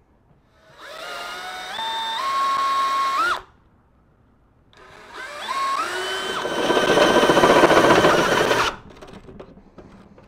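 Cordless drill with a step bit cutting a hole through the truck's rear bumper, in two runs. The motor spins up in steps to a steady high whine, stops for about a second and a half, then runs again louder with more cutting noise, and stops near the end.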